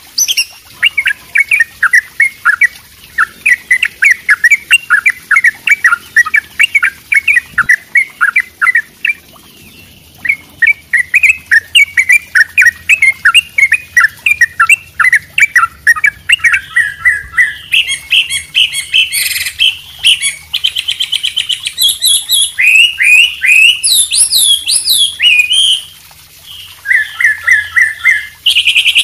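Songbirds singing in a combination recording of white-rumped shama (murai batu), wambi and yellow-vented bulbul (trucuk). Long runs of quick repeated chirps break off briefly about ten seconds in. From about eighteen seconds in come fast trills and varied whistled phrases.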